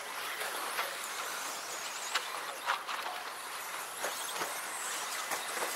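Radio-controlled stadium trucks racing on a track: a steady mix of small-motor whine and tyre noise, with a few short sharp clacks scattered through.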